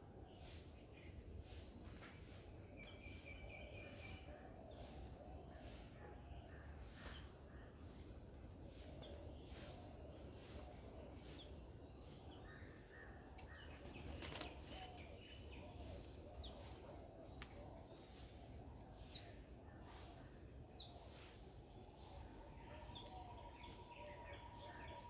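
Faint outdoor garden ambience: a steady high hiss with scattered faint clicks and a few faint bird calls, and one sharp click about halfway through.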